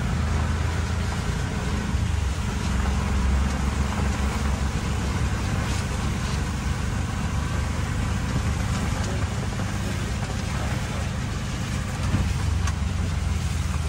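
Auto-rickshaw riding through heavy rain: the engine runs steadily with a low rumble under a continuous hiss of rain and wet road noise.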